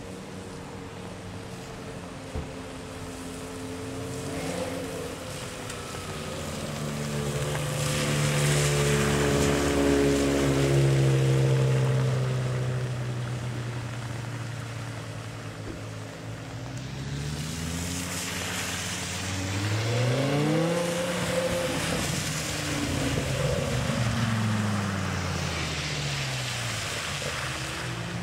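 BMW E60 M5 V10 engines running slowly past, one car after another: a steady engine note swells and fades as the first car goes by, with tyres hissing through standing water on the wet road. In the second half the engine is revved up and down several times.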